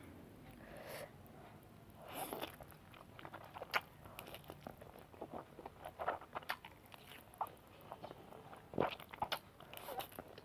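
Spicy noodles being eaten close to the microphone: irregular chewing and biting clicks, starting about two seconds in and going on throughout.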